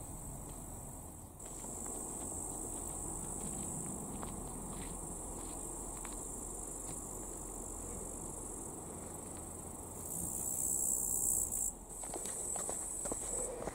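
Insects chirring steadily in a high, even pitch, such as crickets or grasshoppers in summer grass. They grow louder for a couple of seconds near the end.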